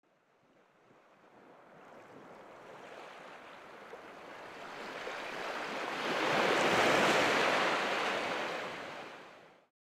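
Ocean surf sound, a single long wash of wave noise that swells slowly from silence, is loudest about two-thirds of the way through, then fades away.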